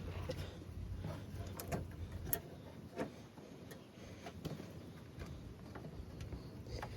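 Scattered light clicks and knocks of hands working a hose fitting loose from a car radiator, over a low steady hum.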